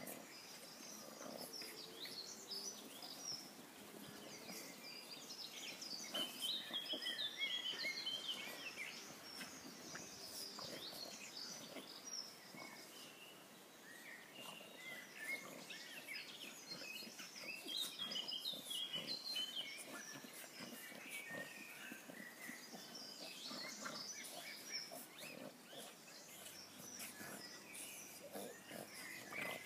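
Two French bulldogs play-fighting, grunting and growling at each other as they wrestle, with short high chirps scattered over it.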